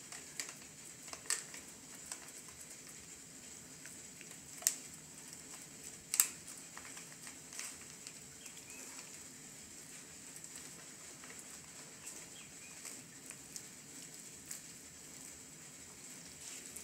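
Quiet handling of raw chicken breast fillets being rubbed by hand with powdered onion soup mix, with a few sharp clicks, the loudest about five and six seconds in, over a steady faint hiss.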